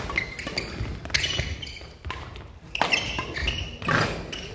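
Badminton doubles rally: rackets hitting the shuttlecock and players' shoes thudding and squeaking on the court floor, a series of sharp hits a second or so apart.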